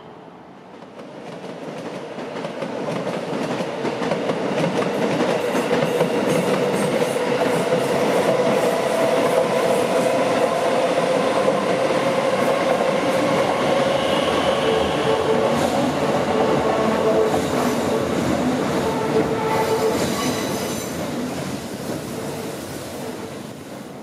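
JR Keihin-Tohoku Line E233-series electric train passing: wheels rumbling on the rails with a held whine. The sound builds over the first few seconds, holds steady, then fades near the end.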